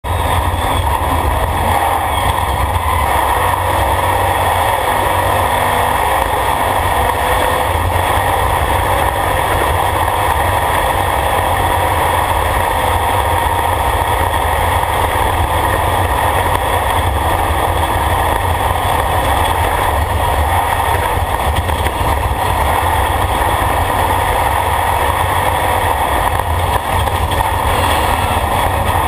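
Off-road race vehicle's engine running steadily at speed over a dirt track, heard from inside its open, caged cockpit.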